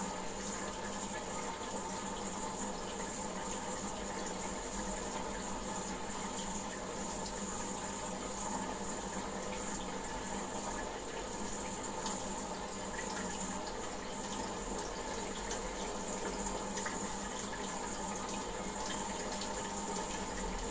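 Goldfish aquarium water running and splashing steadily, as from the tank's circulating water, with a steady hum underneath.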